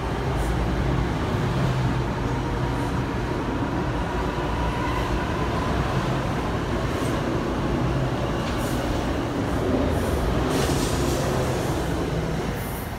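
NJ Transit electric multiple-unit commuter train passing close by at speed: a steady rush and rumble of wheels on rail with a faint steady whine and light clicks. It starts to fade near the end as the last car goes by.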